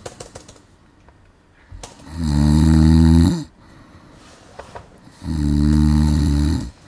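A person snoring loudly: two long, low snores, each about a second and a half, one about two seconds in and one near the end, with quiet breathing between.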